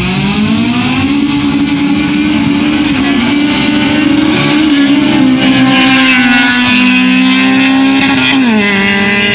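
Car engines at high revs in a drag race. The pitch climbs over the first second and then holds high, a second, lower engine note joins about two-thirds of the way through, and the pitch drops sharply near the end.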